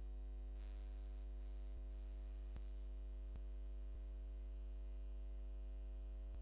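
Quiet, steady electrical mains hum with a few faint ticks. No speech or music.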